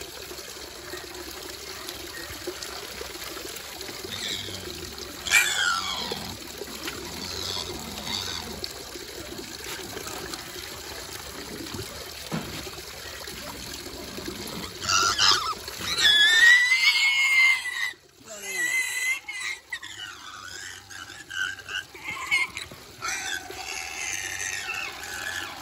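Tap water running and splashing while a piglet is bathed. The piglet squeals briefly about five seconds in, then more loudly and repeatedly from about fifteen seconds in, in high calls that slide up and down.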